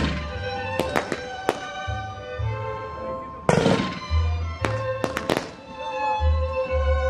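Fireworks going off: a string of sharp bangs, with a bigger crackling burst about three and a half seconds in, over music with a steady bass pulse.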